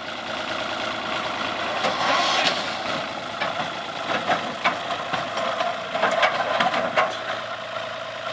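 Old tractor engine running as it tows a loaded trailer away over rough grass, with sharp clanks now and then.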